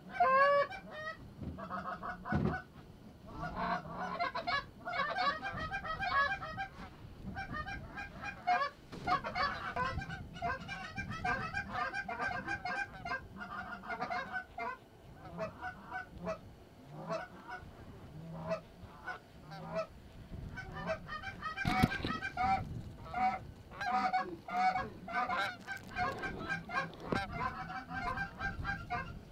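Canada goose honking and clucking: a rapid, continuous string of short calls, with one brief sharp knock about three-quarters of the way through.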